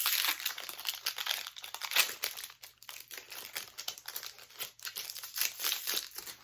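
Foil Pokémon booster pack wrapper crinkling and being torn open by hand, with irregular crackles until it is quiet near the end.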